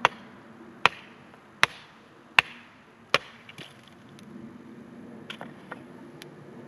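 Five hard chopping strikes about three-quarters of a second apart, an axe or hatchet splitting firewood for the campfire, followed by a few lighter knocks.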